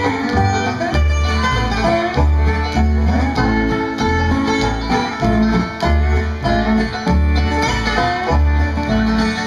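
Instrumental break by a bluegrass band: dobro, banjo, fiddle, acoustic guitar and upright bass playing together over a steady bass beat. The melody has gliding, sliding notes.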